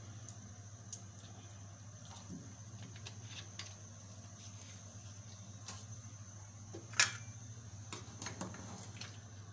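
Chicken broth boiling in an aluminium pot on a gas stove: faint bubbling and light ticks over a steady low hum, with one sharp metal clink about seven seconds in.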